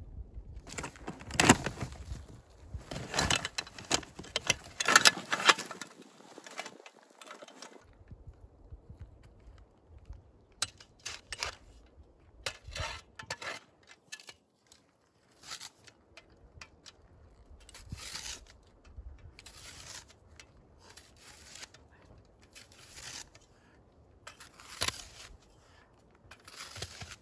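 Irregular crunching and rustling handling noises, dense and loudest over the first six seconds, then scattered short clicks and rustles.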